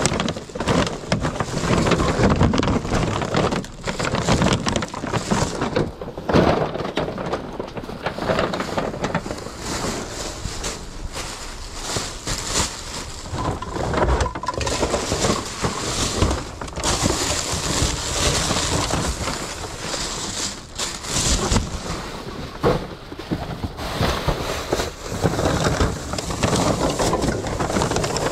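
Plastic trash bags rustling and crinkling as gloved hands rummage through them, with irregular crackles and bumps all through.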